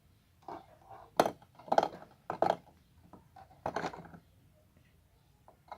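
Toy oranges being set one by one into the toy fridge's fruit drawer: a series of light clacks and knocks, about five louder ones, with small ticks between.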